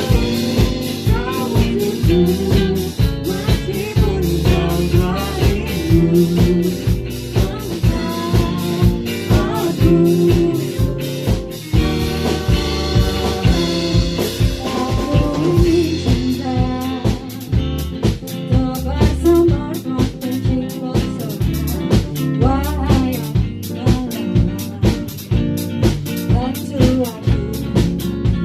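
Pop band playing: a drum kit keeps a steady beat under bass and guitar, with a lead melody line that bends in pitch.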